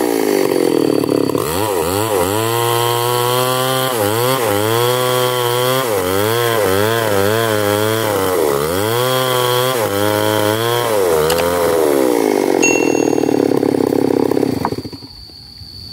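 Stihl two-stroke chainsaw revving up and down over and over, then held at a steady speed for a few seconds before it falls away near the end.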